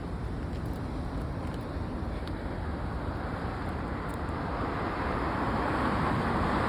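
Steady low rumble of a moving vehicle, growing louder over the last few seconds.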